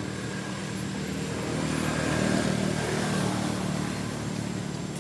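A motor vehicle's engine running steadily as it passes, growing louder about halfway through and then fading.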